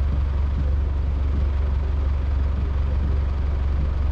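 Car engine idling, heard as a steady low hum.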